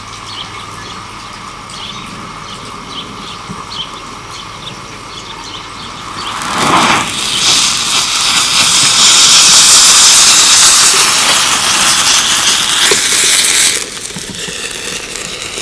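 An iron-oxide and aluminium thermite charge igniting about six seconds in. It gives a loud, rushing hiss that lasts about seven seconds, then drops suddenly to a quieter burning noise.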